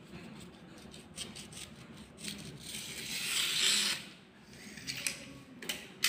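A utility knife slitting a folded sheet of paper along the crease: a rustling scrape that builds to its loudest about three to four seconds in, with light paper rustles and taps around it.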